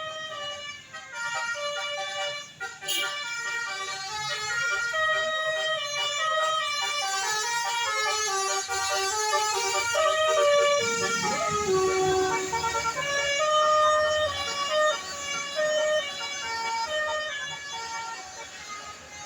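Bus telolet horn, a multi-note air horn playing a quick melody of short tones, often several at once. A bus engine rumbles low as it passes about ten seconds in.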